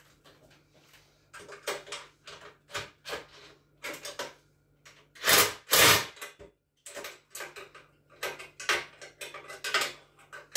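Metal parts and hardware clinking and clattering as a chicken plucker is assembled by hand: a string of short knocks and clicks, with two louder, longer noises a little past halfway.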